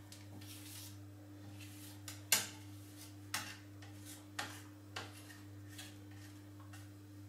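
Thin metal spatula clinking and scraping against a granite countertop and a metal scraper while melted chocolate is spread thin. There are half a dozen short, separate clicks, the sharpest about two seconds in, over a steady low hum.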